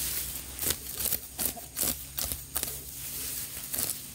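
Hand sickle slicing through tall grass stems in a series of quick, crisp cuts, about two a second.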